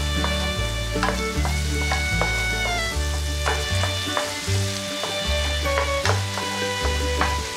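Shrimp, cherry tomatoes and onion sizzling in butter in a frying pan while being stirred with a wooden spatula, which scrapes and taps against the pan. Background music with steady bass notes plays over it.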